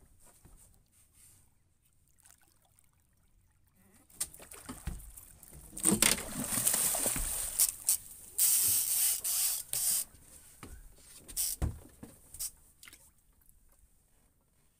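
Water splashing in irregular bursts beside a small boat as a hooked fish thrashes at the surface, with a few sharp knocks. It starts about four seconds in, is loudest in the middle, and dies away a second or two before the end.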